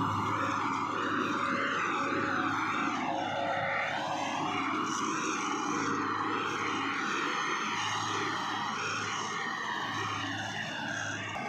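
Combine harvester running steadily, with a continuous engine drone and the noise of its machinery.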